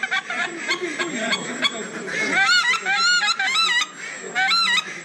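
Goose call blown in quick groups of short honks, each note rising and falling in pitch, starting about two seconds in.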